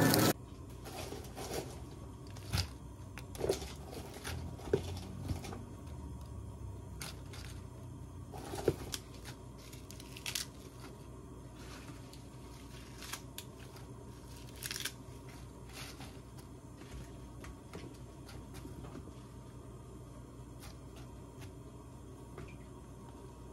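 Light food-handling sounds: scattered soft clicks, taps and plastic crinkles, more of them in the first half, over a faint steady low hum.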